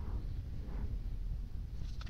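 A paintbrush stroking wet paint onto a small metal vise part, two faint soft swishes under a steady low rumble.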